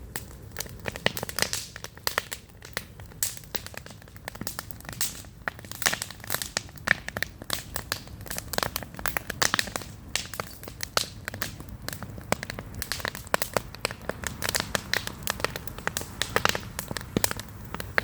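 A campfire crackling, with many irregular sharp pops and snaps.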